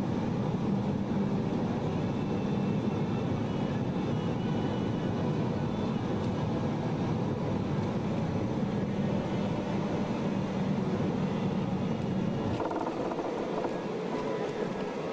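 Boeing 737 cabin noise heard from a window seat: a steady rumble of engines and airflow, with a low hum. Near the end the deepest part of the rumble drops away abruptly.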